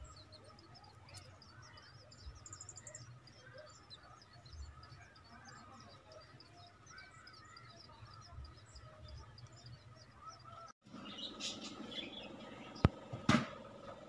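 Tailorbird nestlings cheeping, a rapid run of thin high begging calls. Near the end, after a brief break, the cheeping is louder and two sharp knocks come close together.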